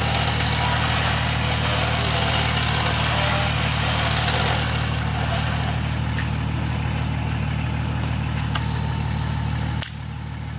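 Off-road 4x4's engine idling steadily, with a hiss over it for the first few seconds; the overall level drops suddenly near the end.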